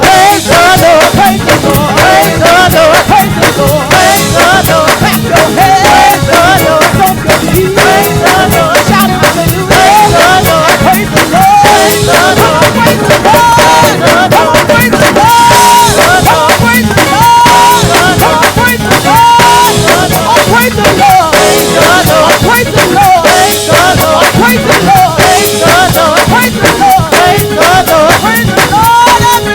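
Live gospel praise band playing a fast, busy groove: a drum kit with rapid snare and cymbal strikes under a sliding melody line with some held notes.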